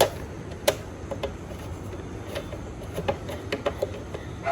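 Scattered light clicks and taps, irregularly spaced, of a motorcycle side panel and its bolt being fitted back in place, over a steady low background hum.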